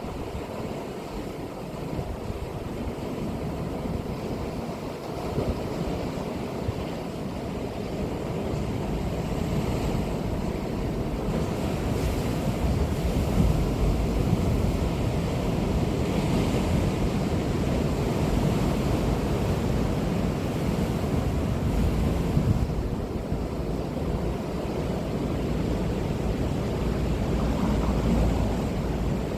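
Waves breaking and washing on the shore, a steady surging rush that swells for a while in the middle, with wind buffeting the microphone.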